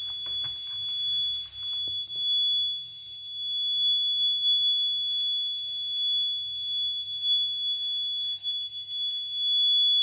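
Piezo alarm buzzer on a fire alarm circuit board giving one continuous high-pitched tone: the fire alert is still active.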